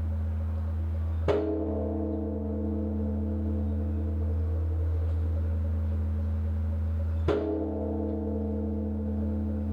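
Large bronze Korean Buddhist temple bell (beomjong) struck twice, about six seconds apart, by a swung wooden log, tolled to announce evening worship. Each strike rings out into a long, deep hum that carries on between the strokes.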